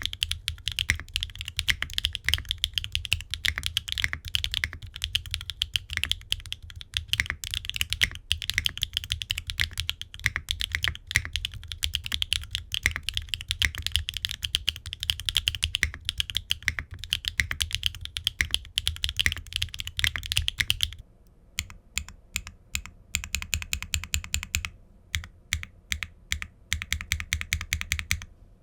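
Typing on a gasket-mounted aluminum 65% mechanical keyboard (Qwertykeys Neo65) with HMX linear switches, ABS keycaps and no foam. A fast, dense run of keystrokes about 21 seconds in gives way to slower, separate key presses at an even pace.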